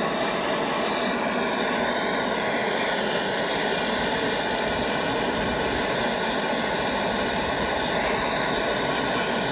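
Gas torch flame burning with a steady, unbroken rushing noise as it heats a crucible of molten sterling silver.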